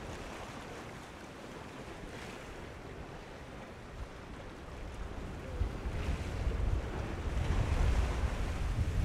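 Ocean surf washing, with wind buffeting the microphone as a low rumble that grows louder about halfway through.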